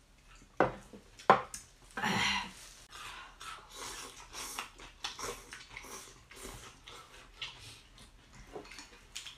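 Two sharp clinks, like a small glass set down, then a short breathy vocal sound about two seconds in. After that comes a run of quick clicks and scrapes of chopsticks against a porcelain rice bowl as someone eats.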